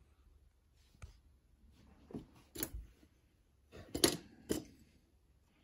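A few light knocks and rubs from a hand taking hold of an unfired clay lantern and turning it on its wooden board, the loudest pair about four seconds in.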